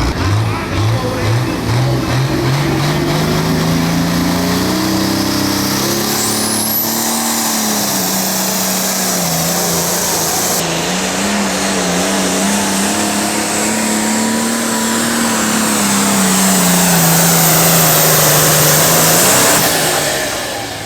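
Pro Farm class pulling tractor's diesel engine at full power during a pull. The engine note climbs over the first several seconds, then holds high and wavers, swells louder for a few seconds, and falls away near the end as the engine lets off.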